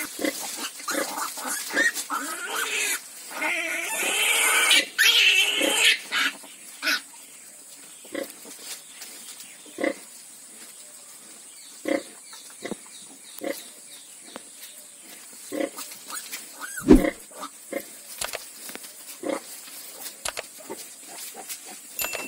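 A sow and her newborn piglets at nursing. There is a busy stretch of squealing and grunting for the first six seconds or so, then short single grunts about once a second.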